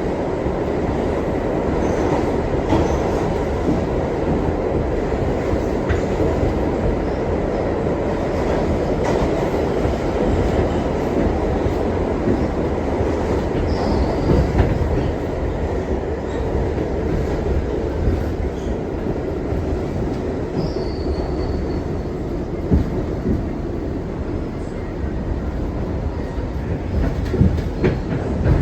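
R62 subway car running at speed, heard from inside the car: a steady rumble with faint steady tones, scattered clicks of wheels over rail joints, and two brief high wheel squeals about halfway through.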